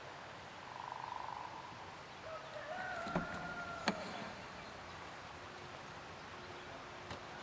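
A rooster crowing in the background, one drawn-out call of about two seconds. Partway through it come two sharp clicks less than a second apart, as the hatchback's tailgate is unlatched.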